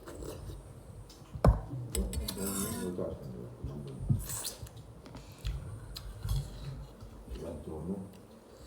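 Plate and cutlery clinking and scraping during a meal, with a few sharp clinks, the loudest about a second and a half in.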